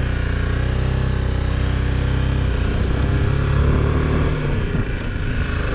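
BMW G310GS single-cylinder engine running under way as the motorcycle is ridden. Its note is steady, then shifts about two and a half seconds in and wavers again shortly before the end.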